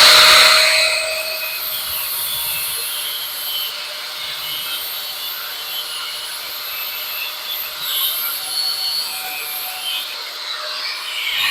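Power cutting tool grinding through a metal fork tine: a steady abrasive grinding noise, loudest in the first second and then settling lower.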